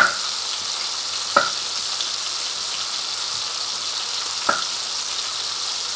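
Bacon sizzling steadily in a frying pan, with three sharp knocks of a chef's knife chopping through mushrooms onto a wooden cutting board: one right at the start (the loudest), one about a second and a half in, and one about four and a half seconds in.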